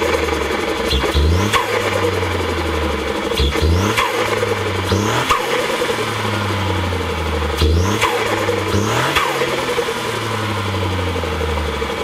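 Ford Fiesta ST Mk8's turbocharged 1.5-litre three-cylinder, with an open Pipercross intake and a Milltek exhaust, heard from outside the car while accelerating through the gears. The pitch climbs and drops back at each shift, with short sharp noises in between.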